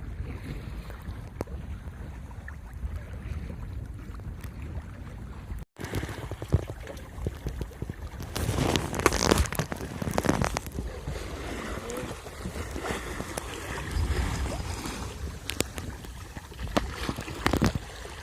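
Wind buffeting the microphone over water lapping around a small fishing boat at sea, with a few light knocks. The sound swells louder for a couple of seconds around the middle.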